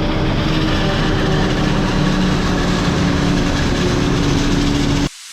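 Heavy diesel engine running steadily with a constant low hum and a held tone, cut off abruptly near the end.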